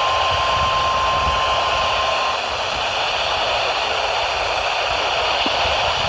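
Weather radio receiver hissing with heavy static on a weak signal, carrying a single steady NOAA Weather Radio alert tone near 1,050 Hz that cuts off about two seconds in; the static hiss continues after it.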